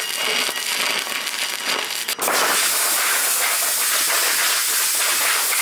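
Stick welder arc crackling and sputtering as the welding rod burns, for about two seconds. It breaks off and a steady loud hiss takes over for the rest of the time.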